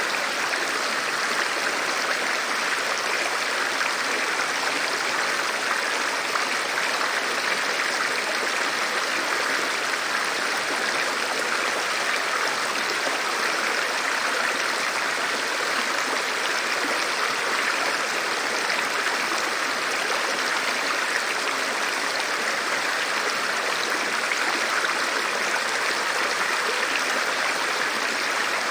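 Running river water: a steady, even rush with no breaks or separate splashes.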